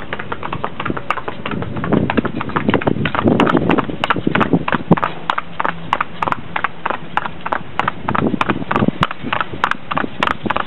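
Hooves of a pair of carriage ponies clip-clopping briskly on a paved road, a quick, even run of about five knocks a second, over the low rumble of the carriage rolling.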